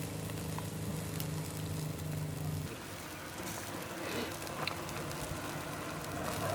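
Barbecue fire crackling and sizzling, under a steady low hum that cuts off abruptly a little under three seconds in.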